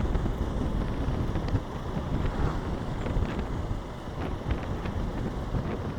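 Wind buffeting the microphone of a rider on a moving motorcycle, a dense, unsteady low rumble with road and traffic noise beneath.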